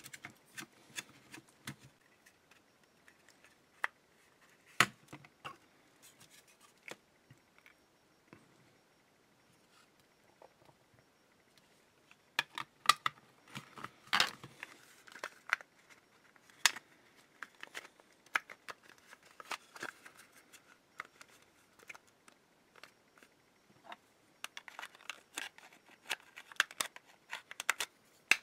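Scattered sharp plastic clicks, taps and rubbing as the two halves of a Black & Decker 2.4 V cordless screwdriver's housing are handled and pressed together over its battery pack and motor. The clicks come in clusters, with a quiet spell of a few seconds near the middle.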